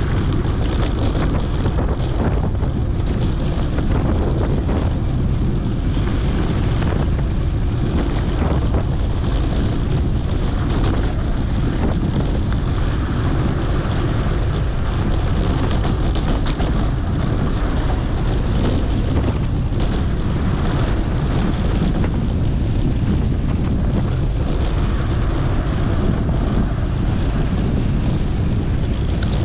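Steady wind rush on a GoPro's microphone over the rumble of mountain bike tyres rolling on a dirt road, even throughout with no distinct knocks or tones.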